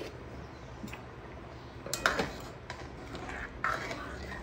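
A spoon clinking and scraping against an aluminium kadai as chilli powder is stirred into simmering tamarind broth, loudest about two seconds in and again near the end. A steady low hum runs underneath.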